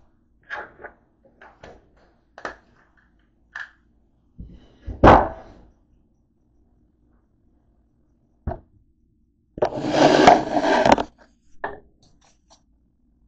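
Household handling noises: scattered light clicks and knocks, one loud knock about five seconds in, then a second and a half of loud rubbing and rustling as the phone camera is picked up and moved.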